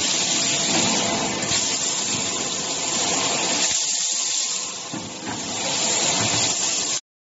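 Automatic scaffolding-column welding machine running: a steady hissing noise from the welding heads and machinery, cutting off suddenly near the end.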